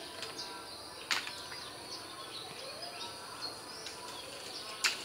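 Scattered short, high bird chirps over a steady outdoor background hiss, with a sharp click about a second in and another near the end.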